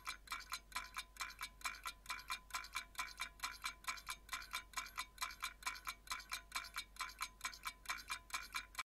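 Countdown-timer ticking sound effect: rapid, evenly spaced ticks, about four a second, each with a short bright ringing tone like a small chime.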